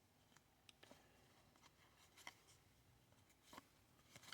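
Near silence with a few faint, scattered clicks and slides of baseball trading cards being handled and flipped through by hand.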